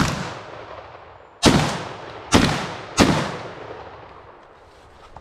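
Shotgun fired four times in quick succession, one shot right at the start and three more about a second and a half, two and a quarter, and three seconds in. The gaps between shots shorten, and each report dies away over about a second.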